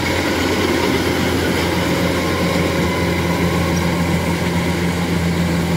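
Rice combine harvester running steadily as it cuts and threshes, its engine and machinery making a constant, even hum with a steady low tone.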